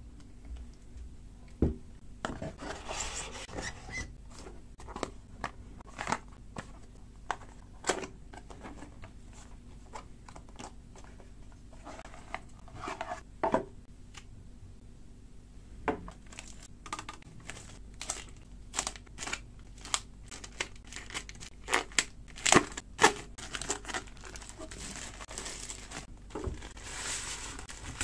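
Cardboard packaging and paper wrapping being handled: rustling and crinkling as a small white device is unpacked and unwrapped, with scattered sharp taps and knocks of box parts, a cable and the device being set down on a table. The loudest knocks come about two-thirds of the way in, and a longer stretch of crinkling runs near the end.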